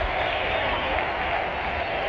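Stadium crowd of football supporters: a steady, dense wash of many voices shouting and singing together.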